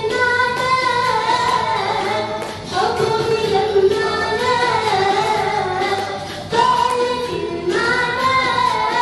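A girl singing an Arabic religious song (inshad) through a hand-held microphone, in long held phrases with gliding ornaments and a short breath between phrases twice. Instrumental backing music plays under her voice.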